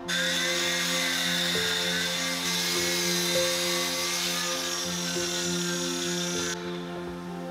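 Miter saw running and cutting through a wooden board: a loud motor and blade whine that wavers in pitch as the blade bites, stopping abruptly about six and a half seconds in. Soft background music plays underneath.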